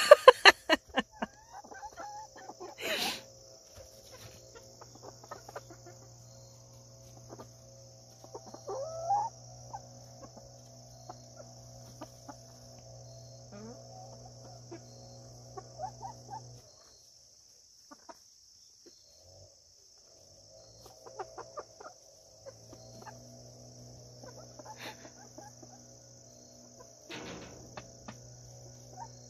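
Backyard chickens clucking softly off and on over a steady high insect drone, with a sharp, loud burst of noise right at the start. A low steady hum underneath drops out for several seconds past the middle.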